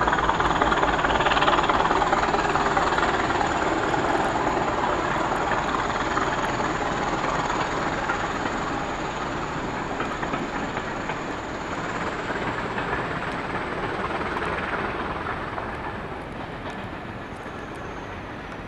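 Steam-hauled passenger train passing by, its wheels running on the rails, with the noise loudest at first and fading steadily as the train draws away.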